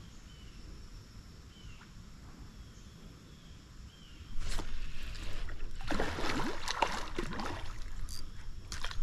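A hooked chinook salmon thrashing and splashing at the surface of a shallow stream, breaking out suddenly about four seconds in and going on to the end. Before that there are only faint chirps, repeating about once a second.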